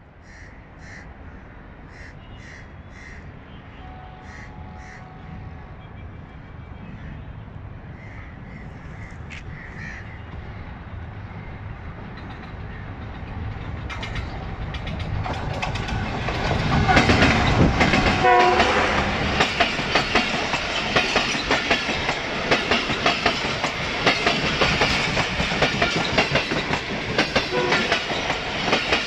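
A Pakistan Railways GE diesel-electric locomotive hauling a passenger express approaches, growing steadily louder, and passes at its loudest about 17 seconds in. Then its coaches run by, wheels clattering over the rail joints in a fast, even rhythm. Crows caw a few times near the start while the train is still distant.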